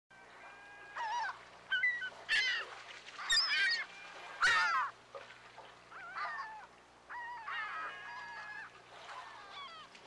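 Birds calling: a string of short, loud, pitched calls, several falling in pitch, with one longer held call near the end, over a faint steady low hum.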